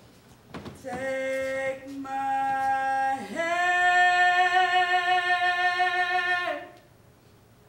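A woman's voice singing unaccompanied: a few short sung notes, then a long held higher note from a little after three seconds in that stops about a second before the end.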